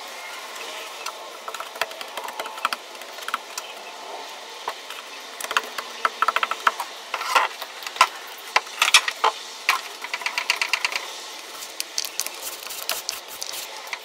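Fiberglass tape being wetted out with epoxy resin by hand: a string of quick clicks and crackly rattles that come in short runs of several a second, busiest in the second half.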